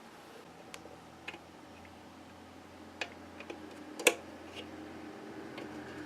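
A few light, scattered clicks and taps of a clear plastic bird seed feeder and its hooks being handled, the loudest about four seconds in, over a faint steady hum.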